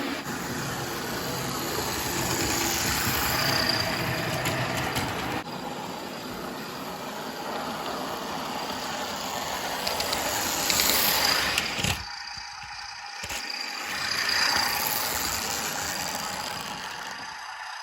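Recorded diesel locomotive engine sound from an OO gauge model railway sound unit, played through a small speaker as the model runs round the layout, swelling and easing in loudness a few times.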